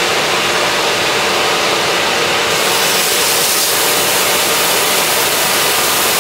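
AirHood portable range hood's fan running steadily on its highest setting (3), an insanely loud rush of air. About two and a half seconds in, the sizzle of a steak laid into hot olive oil in a stainless pan joins it.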